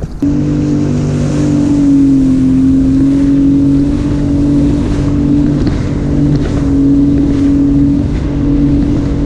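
Sea-Doo Fish Pro 170 jet ski's engine running steadily underway, a constant drone that dips slightly in pitch about two seconds in, with wind and water noise.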